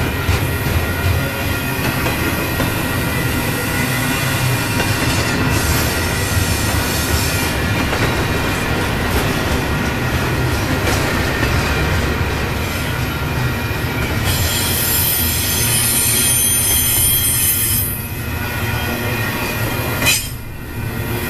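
Double-stack container train's well cars rolling past close by: steady wheel-on-rail noise with high-pitched wheel squeal that is loudest past the middle, and a brief drop in level near the end.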